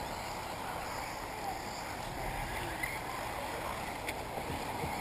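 Steady rushing outdoor noise, mostly wind on the microphone, with faint short whines from 1/8-scale electric RC buggies running on the track.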